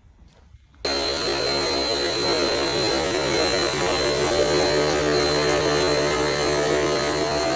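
Traxxas Rustler RC car's electric motor and drivetrain starting abruptly about a second in, then running at a steady high speed with a hum and a thin, constant high-pitched whine.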